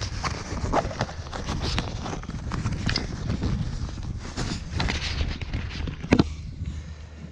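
Camera handling noise: a hand rubbing and knocking on the camera right at the microphone, a run of irregular clicks and taps, the sharpest about six seconds in.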